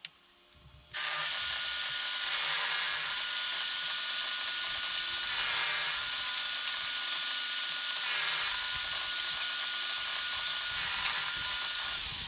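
Table saw running and cutting through plywood: a steady, high-pitched whine that starts suddenly about a second in and swells louder about four times as the blade bites into the wood.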